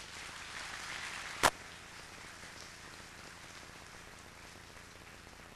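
An audience applauds: the clapping swells over the first second or so, then slowly fades. About a second and a half in comes a single sharp knock, a handheld microphone being handled as it is passed between panellists.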